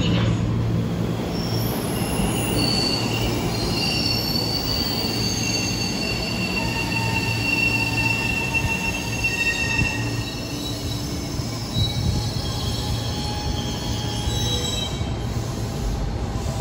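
JR 205-series electric train running along an underground station platform, its wheels squealing on the rails with several high-pitched tones that hold for most of the time over a low running rumble.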